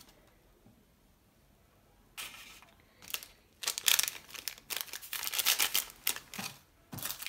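Small packet of candy powder being crinkled and torn open by hand: a run of crackly rustles starting about two seconds in, loudest in the middle.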